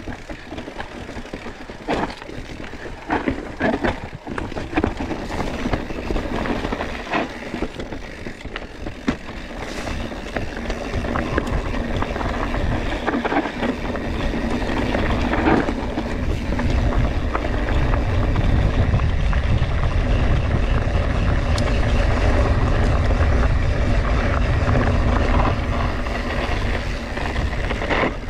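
Scott Spark RC full-suspension mountain bike ridden over dry, rough singletrack: tyres on dusty dirt, with frequent sharp knocks and rattles from the bike over bumps. About halfway through, a low wind rumble on the action camera's microphone builds and stays loud.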